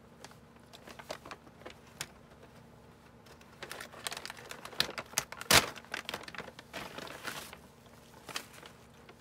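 Plastic food packaging crinkling and rustling as it is handled, with scattered clicks and one sharp knock about five and a half seconds in.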